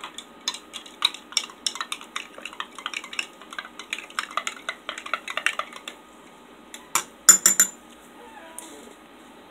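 A spoon stirring a drink-powder mix in a drinking glass, clinking rapidly against the glass and stopping about six seconds in. A few louder clinks follow about a second later.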